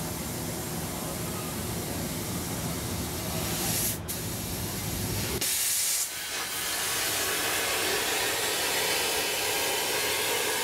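A CNC plate-burning machine's plasma torch starting up on steel plate. A steady low rumble gives way, about five seconds in, to a sudden loud burst of hiss, and then a steady hiss as the torch cuts.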